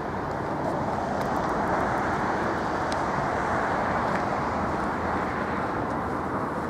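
Steady rushing outdoor noise, swelling a little in the middle and easing off near the end, with a few faint ticks.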